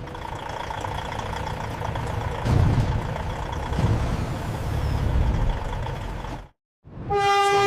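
Heavy trucks of a convoy running with a steady low engine rumble, then, after a brief silent cut, a truck air horn sounds a long steady blast near the end.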